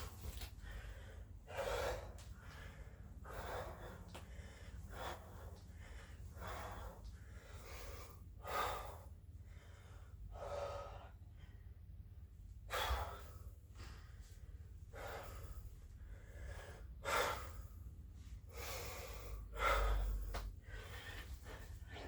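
A man breathing hard from exertion: loud, noisy breaths every second or two over a steady low hum, with a dull low thump near the end.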